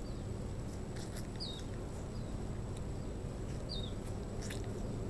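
A small bird gives short, falling chirps, about four in all, two of them clear, over a steady low rumble. A couple of brief crisp crunches, about a second in and near the end, are an apple being chewed.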